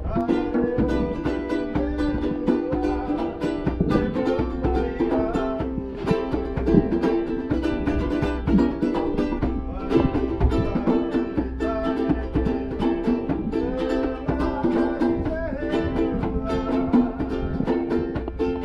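Background music led by a plucked ukulele with a steady beat.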